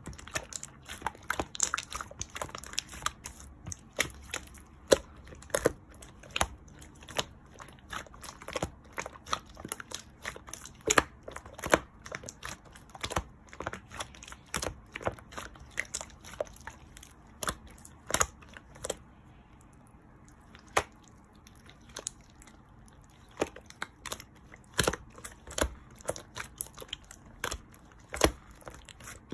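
Clear slime worked by hand, giving irregular sharp clicks and pops, often several a second, with a short sparser stretch a little past the middle.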